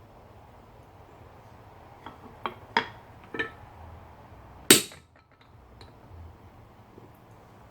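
Blacksmith's metal tools clinking: a few light metal-on-metal clinks, then one loud ringing metal strike about two-thirds of the way through, over a low steady hum.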